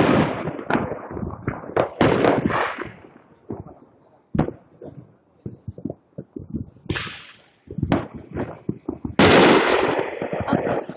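Fireworks and firecrackers going off: a run of sharp cracks and pops, with louder crackling blasts at the start, about two seconds in, and twice in the second half.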